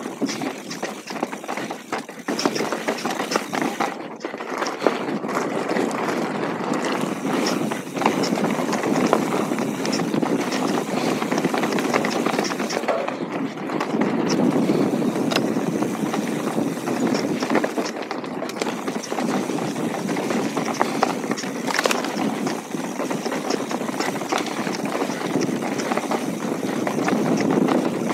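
Mountain bike rolling down a rocky trail: tyres crunching over small stones, with a constant clatter of small knocks from the bike over the bumps. Quieter for the first two seconds, then steady.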